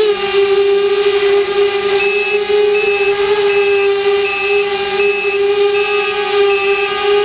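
Mini quadcopter's motors and propellers running at a steady hover, a loud even whine with only slight drifts in pitch. From about two seconds in, a high electronic beep repeats a little faster than once a second on top of the whine.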